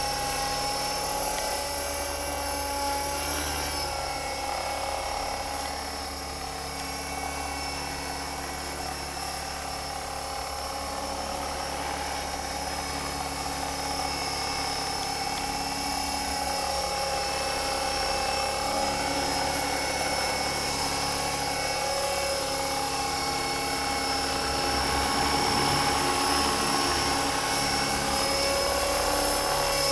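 Electric Align T-REX 450 model helicopter in flight: a steady high whine from its motor and gearing over the whir of the rotor, the pitch shifting slightly as it hovers and manoeuvres, a little louder in the last few seconds.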